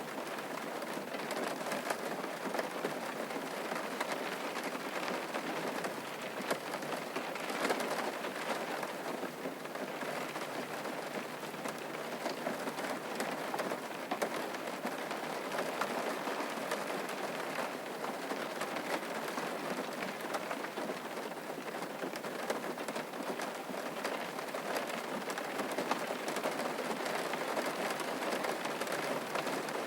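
Steady rain falling on a surface: a dense, even patter of drops that keeps up without a break.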